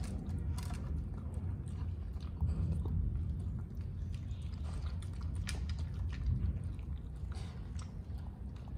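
Small shaggy dog eating cooked rice from a metal tray: wet chewing with many short, scattered clicks, over a steady low rumble.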